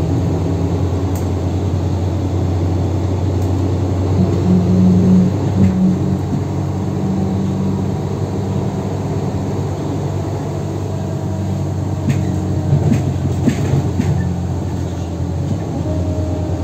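Mercedes-Benz O530G Citaro articulated bus under way with a ZF Ecomat automatic gearbox: a steady low diesel engine hum, swelling briefly louder about five seconds in. A few short rattles come near the end.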